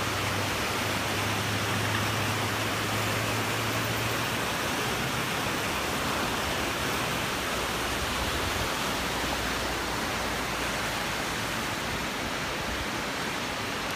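Fast glacier-fed river running high with meltwater, rushing steadily over rocks. A low hum comes in underneath for a few seconds at the start and again in the second half.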